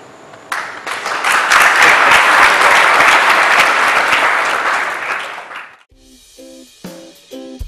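Audience applause: a dense clapping crowd that swells to a peak and dies away after about five seconds. Near the end, light plucked-string music with short, evenly spaced notes begins.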